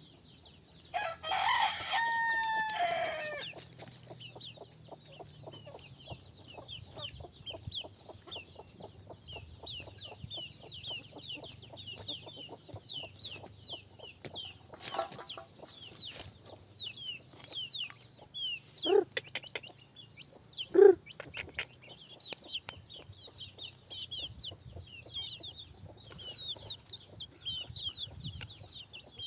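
Rooster crowing once, a long held call starting about a second in, then chickens clucking, with two short loud squawks about two-thirds of the way through. Thin high-pitched chirping goes on throughout.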